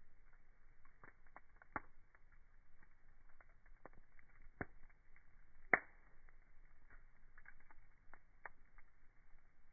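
Wood fire crackling, with irregular small cracks and a few louder pops, the loudest about six seconds in.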